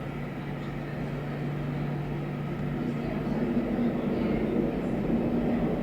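Jet airliner engines running steadily, a low hum whose steady tone shifts higher about three seconds in as it grows slightly louder.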